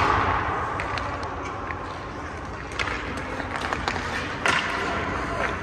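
Hockey skate blades scraping the ice and pucks clacking off sticks: a sharp crack right at the start with a hiss of skates fading after it, then a few more knocks later, echoing in the rink.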